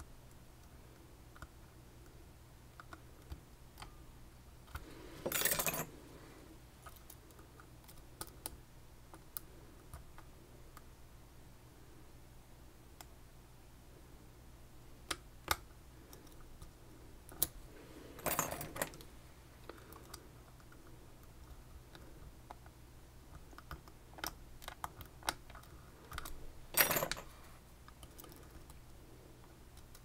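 Faint clicks and ticks of a lock pick and tension wrench working in the cylinder of a Banham lock, with three louder bursts of about a second each, about five, eighteen and twenty-seven seconds in.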